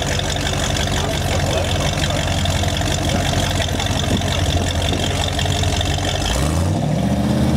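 1966 Ford Mustang's engine idling steadily, then revved once near the end, the pitch rising and starting to fall back.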